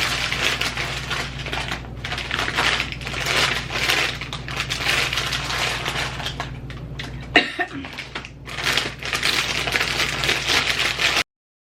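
Crunching of potato chips being chewed close to the microphone, a dense run of crackly bites. A steady low hum runs underneath and stops with a sharp knock about seven seconds in; the sound cuts off suddenly near the end.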